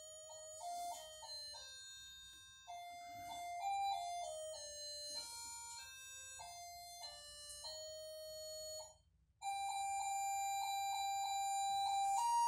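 A simple electronic melody, one note at a time in plain beeping tones like a toy's sound chip. It drops out for a moment about nine seconds in, then carries on with a run of repeated notes.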